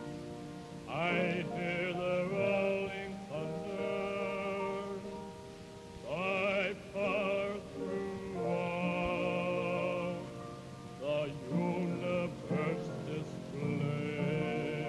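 Gospel singing: a male voice sings several phrases of long held notes with a wide vibrato, over lower sustained parts.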